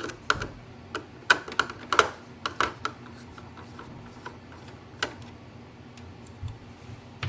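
Irregular light clicks and taps of a screwdriver working at small screws inside an Epson EcoTank printer, mostly in the first few seconds, then a few single clicks.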